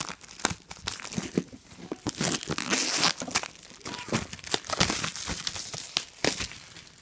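Clear plastic shrink wrap being torn and crumpled off an iPad Air box: a dense, irregular crinkling, loudest in the middle.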